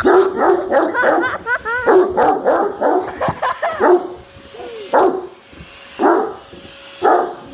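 Dog barking: a quick string of barks and yips for about four seconds, then single barks spaced about a second apart.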